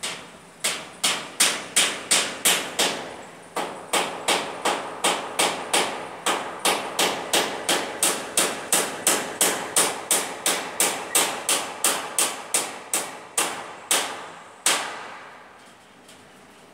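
Hammer driving nails overhead into a fascia board: a steady run of sharp strikes, about three a second, with a short pause about three seconds in, ending with one last blow near the end.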